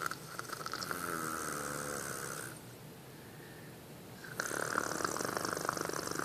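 A person snoring in sleep after an operation: a long fluttering snore, a short quieter pause, then a second snore that starts about four seconds in.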